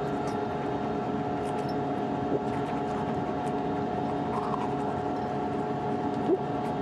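Steady hum of the International Space Station's cabin fans and equipment, holding several constant tones, with faint scrubbing of a toothbrush on teeth.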